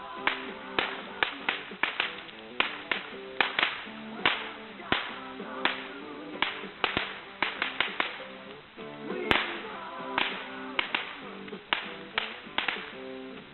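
Firecrackers going off in quick, irregular sharp cracks, several a second, over background music.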